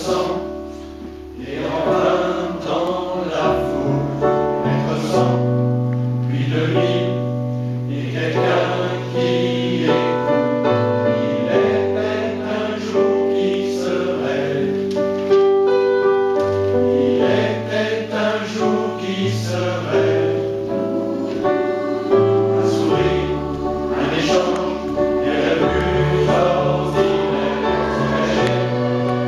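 Large mixed choir of men and women singing a song in harmony, with sustained notes that change every second or two, over an instrumental accompaniment with steady low bass notes.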